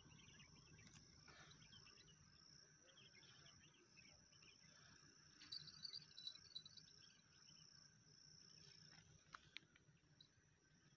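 Near silence: a faint, steady high-pitched insect trill, with a brief flurry of faint chirps about halfway through and two faint clicks near the end.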